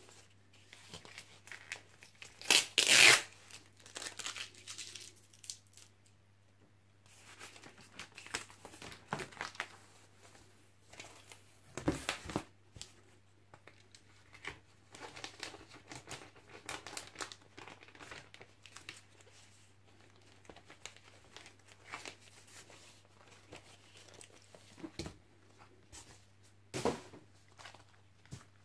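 Packing tape being cut and ripped off a cardboard mailer, loudest as a tearing rip about three seconds in, followed by cardboard, paper and a clear plastic cel sleeve rustling and crinkling as they are handled, with a couple of knocks.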